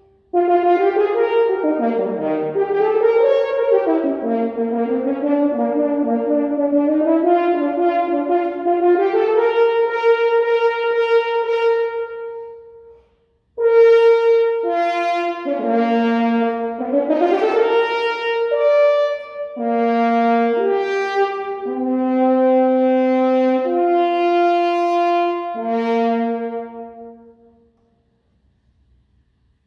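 Solo French horn playing unaccompanied: a long phrase, a brief break, then a second phrase with a quick upward run, ending a couple of seconds before the end.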